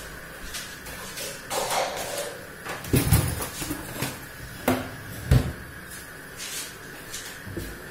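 Kitchen knocks and thumps: a few dull bumps, the three loudest close together in the middle, about half a second to a second and a half apart.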